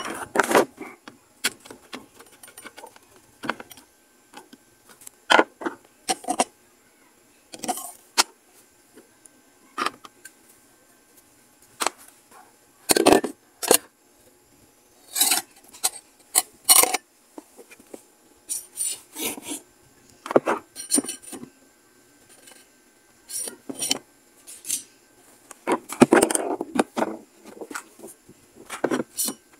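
Intermittent knocks, clicks and scraping from stand-fan parts being handled and fitted together: the hard plastic base and the metal pole bumping and rubbing, with small metal clinks. The loudest knocks fall about 13 s and 26 s in.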